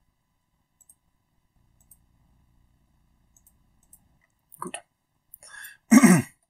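Faint computer mouse clicks, a few scattered through the first four seconds. Near the end comes a short, louder wordless vocal sound from a man, falling slightly in pitch.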